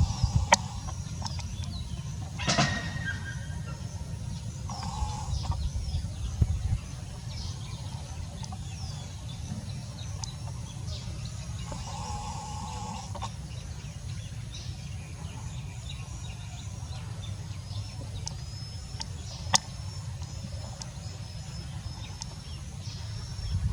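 Chickens clucking now and then, with small birds chirping, over a steady low rumble and a couple of sharp clicks.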